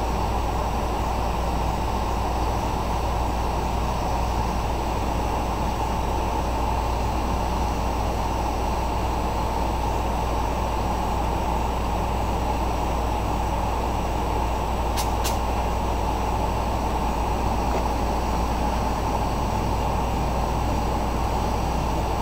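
Propane burner firing a thermoelectric generator, running with a steady, unchanging rush heaviest in the low end. Two faint clicks about fifteen seconds in.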